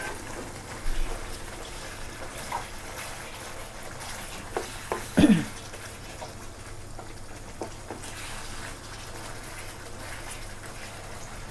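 Coconut cream being poured into a pan of cooking pork panang curry and stirred, the liquid splashing and bubbling. A few utensil knocks against the pan stand out, the loudest about five seconds in.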